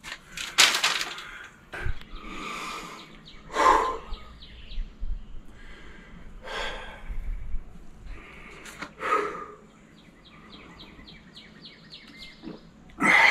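Birds calling outdoors, with a fast run of short repeated chirps near the end, and a few breathy exhales from a man sitting at rest.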